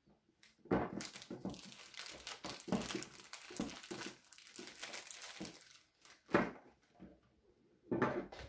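Clear plastic packaging crinkling and rustling as a hydraulic disc brake lever, hose and caliper are handled on it. Near the end come a sharp knock and a second short clatter.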